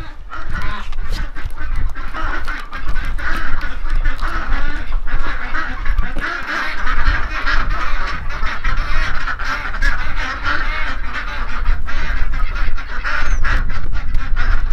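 A flock of ducks and geese calling over one another, a continuous jumble of quacks and honks.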